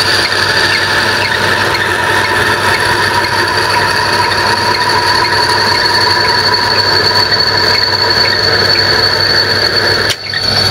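Small metal lathe running as it turns a metal rod, with a steady high-pitched squeal from its slipping drive belt over the motor's hum. The sound briefly drops out about ten seconds in.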